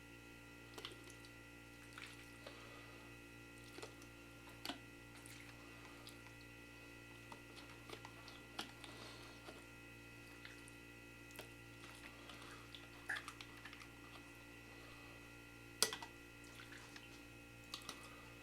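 Faint, scattered squishing, clicks and taps of raw chicken cubes being packed by hand into glass quart jars, with one sharper click near the end, over a steady low hum.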